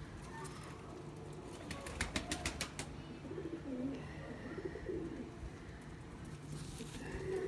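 Domestic pigeons cooing faintly, off and on, with a quick run of light clicks about two seconds in.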